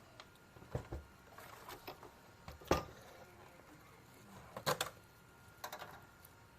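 Scattered sharp clicks and light knocks of parts or tools being handled on a workbench, loudest about three seconds in, with a quick cluster near the end.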